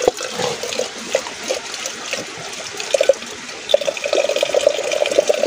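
Shallow stream water splashing and gurgling around and into a lidded aluminium pot held down in the flow, in short gurgles at first and a steadier gurgle from about four seconds in.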